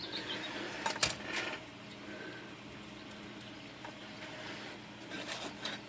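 Metal clicks and light rattles from a Royal Quiet De Luxe typewriter's margin and carriage mechanism being worked by hand: a sharp click about a second in with smaller clicks around it, and a few more light clicks near the end.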